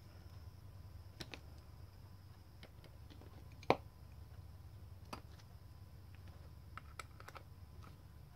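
Faint, scattered metal clicks and ticks of a screwdriver prying up the bent-over tabs on the back of a Lift the Dot fastener. One sharper click comes a little under four seconds in.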